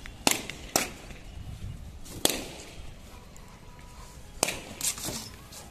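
Party balloons bursting one after another as a Rottweiler bites into them: five sharp pops, the first two close together, then one a second and a half later, then two more close together near the end.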